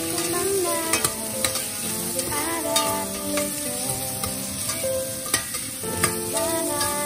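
Chopped aromatics sizzling in oil in a stainless steel pot while a metal spoon stirs and scrapes them, with sharp clicks of the spoon against the pot several times. Background music plays throughout.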